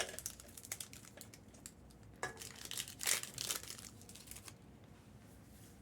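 Faint crinkling and rustling of plastic-wrapped trading-card packs being handled, a little louder in short spells about two and three seconds in.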